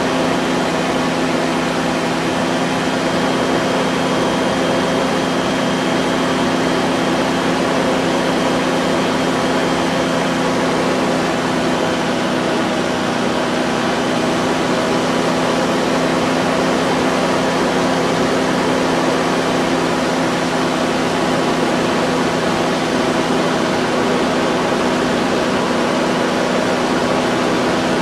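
Light aircraft's engine running steadily in cruise flight: a constant, unchanging drone over a rush of air noise.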